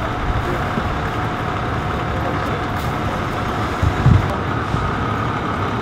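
Steady rumble of idling vehicle engines and street traffic, with a faint steady hum and a single low thump about four seconds in.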